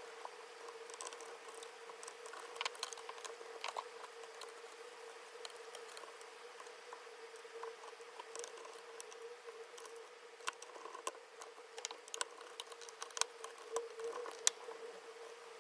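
Irregular light clicks and taps of small parts and hand tools being handled during reassembly of an electronic device, a few sharper ones near the end, over a steady faint hum.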